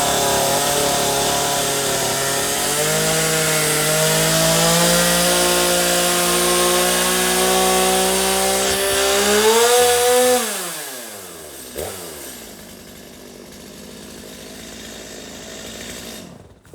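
Two-stroke chainsaw engine running steadily, revving up briefly about ten seconds in, then shut off, its pitch falling away as it winds down. A single click follows about a second later.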